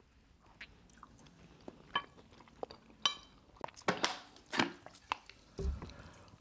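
Quiet chewing and mouth sounds of people eating rice and meat, with scattered small clicks and knocks of a spoon against a plate.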